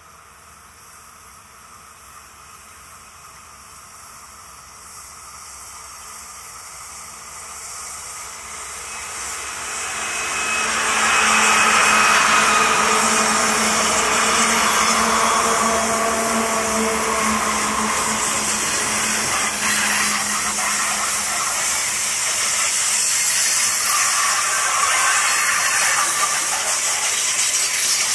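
Diesel-hauled freight train approaching, growing steadily louder over about ten seconds with a steady locomotive engine drone. The drone fades after about twenty seconds while the cars roll past with a steady hiss of wheels on rail.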